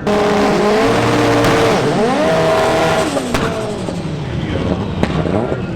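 A front-wheel-drive drag racing car under full throttle, its engine pitch climbing and dropping sharply twice as it shifts up through the gears.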